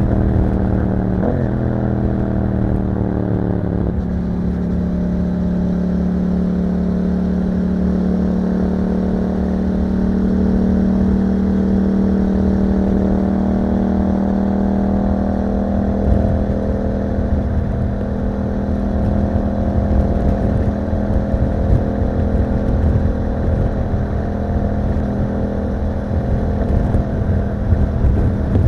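2021 Yamaha MT-07's 689 cc parallel-twin engine running through an Akrapovic exhaust under way. The engine note falls in pitch over the first few seconds, with a brief rise about a second in, then holds a steady cruise.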